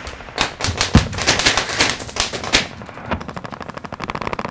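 Automatic gunfire in rapid bursts, loudest over the first two and a half seconds, then a fainter, quicker rattle.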